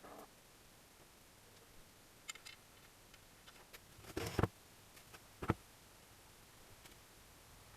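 A few light clicks, then a short run of louder knocks about four seconds in and a single sharp knock about a second later: tools and small engine parts handled during an engine assembly.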